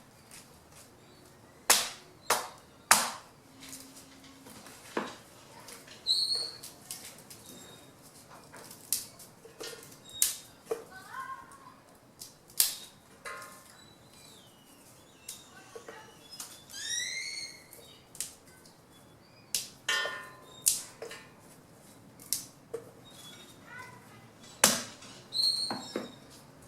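Sharp, irregular snaps and knocks, one every second or two, as fallen branches are cut into wood chips by hand. Birds chirp now and then in between.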